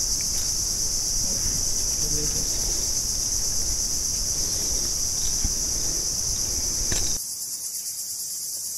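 Steady, high-pitched buzzing chorus of insects that runs without a break. Under it is a low rustling hiss that drops away suddenly about seven seconds in.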